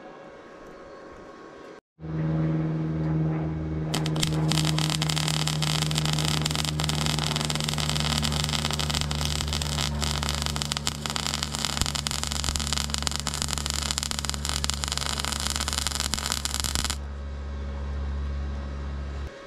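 Flux-core welder laying a bead on stainless steel exhaust pipe: a steady buzzing hum starts abruptly about two seconds in. A dense arc crackle runs over it for about thirteen seconds, then stops while the hum continues.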